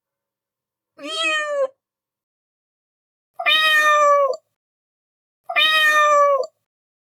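Domestic cat meowing three times: a shorter, quieter meow, then two louder, longer ones of about a second each.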